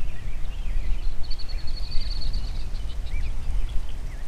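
Wind rumbling on the microphone in an open field, with birds calling in short up-and-down chirps. A rapid high trill starts about a second in and lasts about a second and a half.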